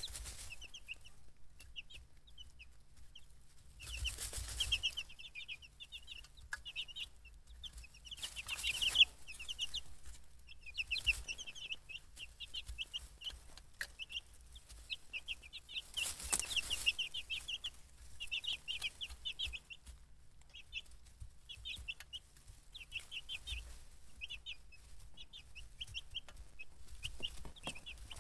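A group of young chicks peeping constantly in quick runs of short high chirps, with a few brief noisy rustles about 4, 8 and 16 seconds in.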